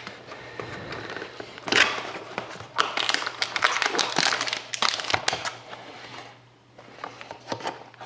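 Plastic wrapping crinkling and a cardboard trading-card box being handled and opened, in irregular rustles with sharp clicks, dying down for a moment near the end.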